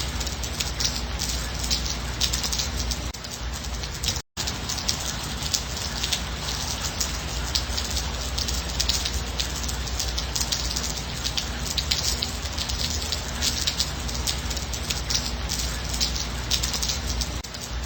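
Steady rain falling, a dense patter of many small drops. The sound cuts out completely for a split second about four seconds in.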